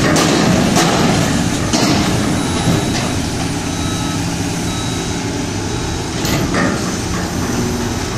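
Diesel engines of heavy earthmoving machinery, a rotary piling rig and a backhoe loader, running steadily while they work, with a few sharp knocks about a second in and again about six seconds in.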